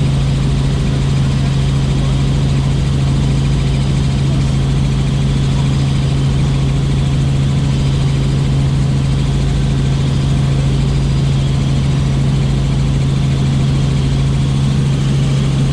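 Helicopter running: a loud, steady drone with a strong low hum that does not change.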